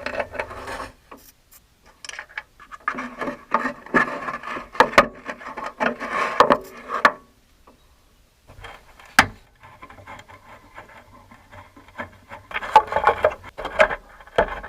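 Irregular scraping and rubbing with scattered sharp knocks from hands-on work, in two spells split by a short pause, with one sharp knock just after the pause.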